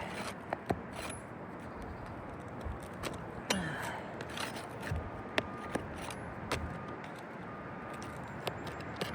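Scattered clicks, taps and scrapes of stiff roof shingles being worked up by hand to reach the nails beneath, over a steady outdoor hiss.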